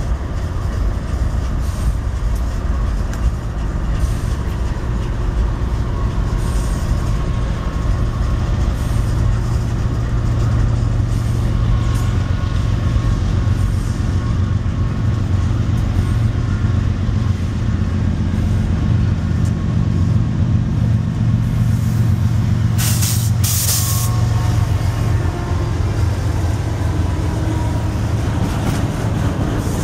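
Diesel-hauled double-stack intermodal freight train approaching and rumbling past, the locomotives and then the container well cars rolling by. There are two short hisses about three-quarters of the way through.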